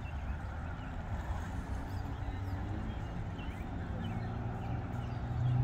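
Low, steady rumble of idling vehicle engines, with a low hum growing louder near the end. Faint bird calls chirp over it.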